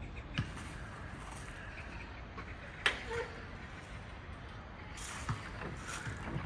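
Outdoor city ambience: a steady low hum of distant traffic, with a few sharp clicks, the loudest about three seconds in, and light hissy scuffing near the end.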